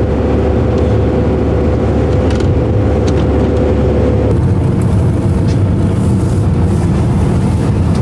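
Van driving on the road: steady, loud engine and road rumble, with a steady hum on top that drops out about four seconds in.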